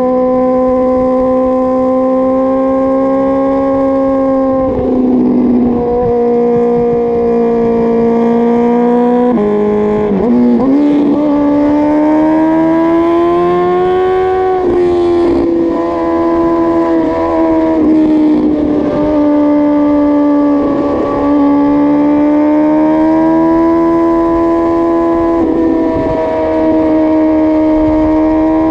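Suzuki GSX-R1000 K5 inline four-cylinder engine held at steady raised revs. Every five seconds or so a quick throttle blip breaks the pitch and leaves it a little higher or lower.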